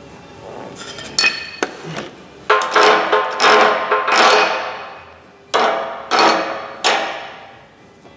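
Hammer blows on the freshly welded steel blade of a John Deere 1010E forwarder: about nine sharp strikes, some in quick pairs, each leaving the steel ringing.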